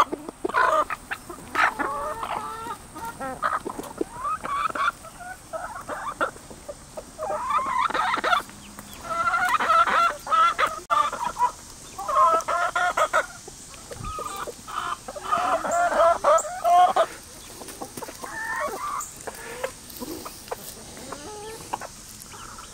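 A backyard flock of hens and roosters clucking and calling over one another, with several longer, drawn-out calls in the middle.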